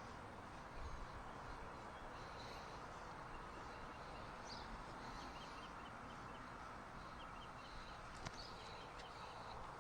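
Steady outdoor background hiss with faint, short bird chirps coming in small clusters, and one sharp click about eight seconds in.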